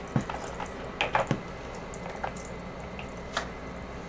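Puppy working a plastic dog treat puzzle with nose and paws: a few irregular light clicks and knocks of the plastic pieces being nudged and shifted.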